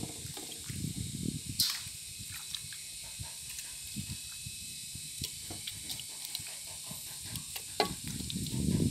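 Raw beef tripe being handled: wet squelching and slapping as pieces are scooped by hand from a plastic bowl and dropped into a pressure cooker, with a few sharp clicks of the bowl and pot, over a steady high hiss.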